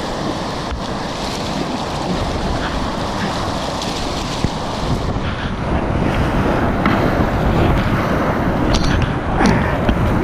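Whitewater rapids rushing around a kayak, with wind on the microphone. The rush grows louder about halfway through as the kayak runs down the rapid, and a few sharp paddle splashes come near the end.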